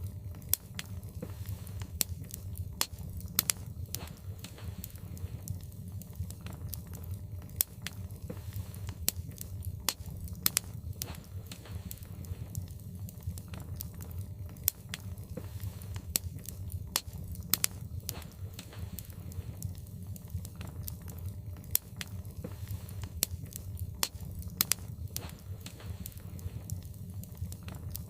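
Wood logs burning in a fireplace, with frequent irregular sharp crackles and pops over a steady low sound of the flames.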